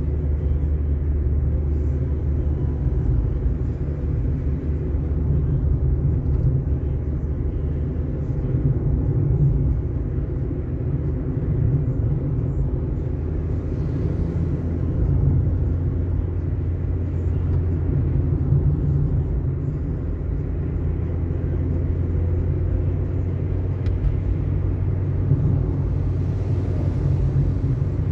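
Car driving steadily on an asphalt road: a steady low rumble of engine and tyres.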